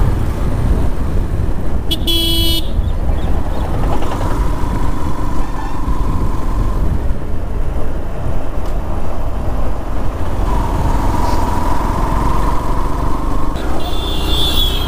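Motorcycle riding through traffic, its engine running under a steady rumble of wind on the microphone. A vehicle horn gives a short blast about two seconds in, and another sounds briefly near the end. Two longer steady tones come at about four and eleven seconds.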